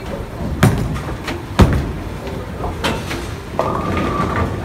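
Bowling alley din: a bowling ball lands with a heavy thud on the wooden lane and rolls away, among knocks and clatter from the lanes. A brief steady beep sounds near the end.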